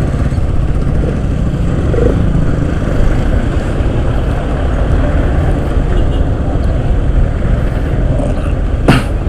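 Motorcycle riding noise on a helmet-mounted action-camera mic: steady wind rush and engine and road rumble, with a short knock near the end.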